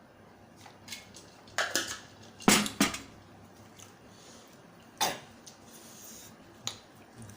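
A person coughing from the chili heat of a very spicy Thai seafood salad: a few short coughs, the two loudest close together about two and a half seconds in, and a single one about five seconds in.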